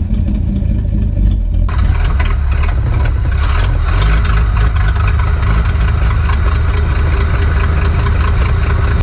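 A 1952 Dodge Meadowbrook's flathead straight-six idling steadily, running on its first start after years of sitting. It is heard from inside the cabin at first, then close up at the open hood from about two seconds in.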